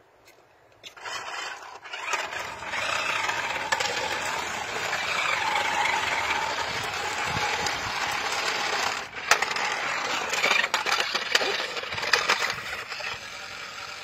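Small remote-control stunt car driving over a concrete sidewalk: a wavering electric motor whine mixed with the rattle and scrape of its plastic wheels on the concrete. Several sharp clacks come in the second half as it bumps and tumbles.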